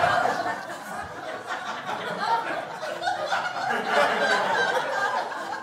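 Audience laughing at a stand-up punchline, many voices together, loudest at the start and then easing off.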